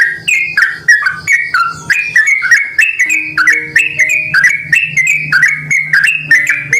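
Yellow-vented bulbul (trucukan) singing a long, unbroken string of short warbled phrases, two or three a second, with a faint steady low hum underneath.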